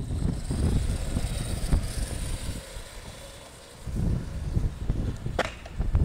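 Wind buffeting the microphone in gusts, over the faint high whine of an electric HPI RS4 Mini Pro radio-controlled car's motor as it drives on the road. A single sharp click near the end.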